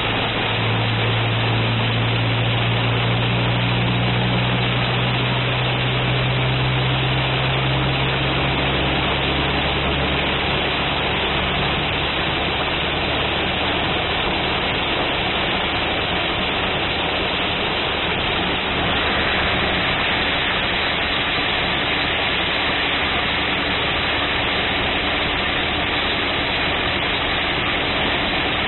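Torrential rain on a car, heard from inside the cabin as a loud, steady hiss. A low engine hum runs underneath for roughly the first ten seconds and then fades. The hiss turns brighter about two-thirds of the way in.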